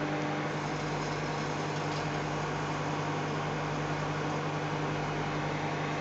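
A 900-watt microwave oven running, heating a CD-R in a small plate of water: a steady hum over even fan noise.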